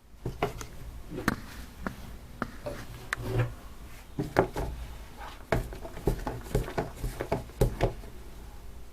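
A spoon stirring sticky slime in a bowl, as borax is worked in to stiffen it. It makes irregular knocks and clicks against the bowl, a few a second, starting suddenly.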